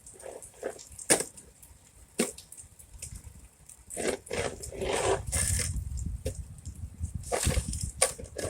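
Footsteps crunching and squishing through wet slush and ice, with irregular scrapes, and a low rumble partway through.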